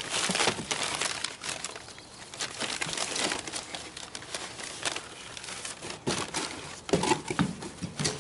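Packing paper and a plastic bag crinkling and rustling in irregular bursts as they are pulled out of a cardboard box.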